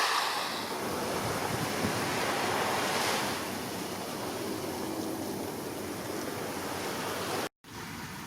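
Wind noise on the microphone over waves and water washing. The sound cuts out for an instant near the end and comes back quieter.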